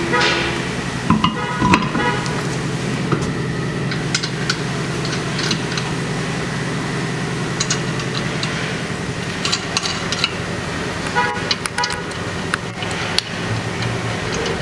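Scattered knocks and metallic clinks of a spare wheel and its lug nuts being handled and fitted onto a car's wheel hub, over a steady low hum.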